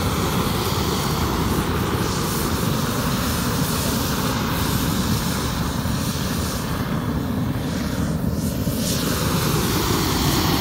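Homemade air-fed diesel rocket engine firing: a loud, steady rushing noise of compressed air and burning diesel blasting out of the nozzle.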